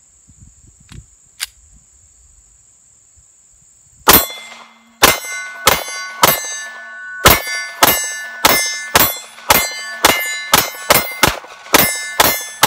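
A 9mm Glock 26 pistol fired in a fast string of about sixteen shots, starting about four seconds in, each followed by the ringing clang of hit steel plate targets. Before the shooting, insects chirr steadily.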